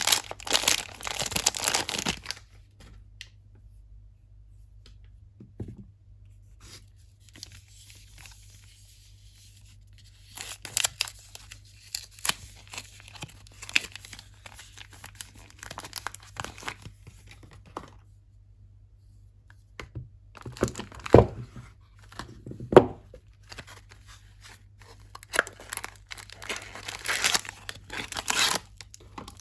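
Soap packaging being torn open and crinkled by hand as soaps are unwrapped, in crackling bursts with a quiet pause after the first couple of seconds. Two sharper knocks stand out about two-thirds of the way through.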